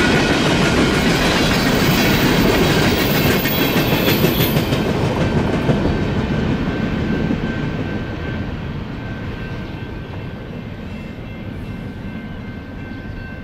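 Empty steel coal hopper cars rolling past on the rails, wheels clicking over the rail joints. The last car passes about six seconds in, and the rumble of the train fades away steadily after that.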